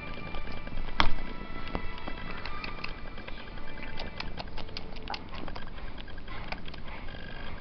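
Background music playing with scattered clicks and taps over it, and one sharp knock about a second in that is the loudest sound.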